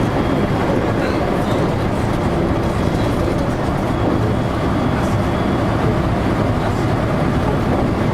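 JR local electric train running steadily between stations, heard from inside the car: a constant rumble of wheels on the rails.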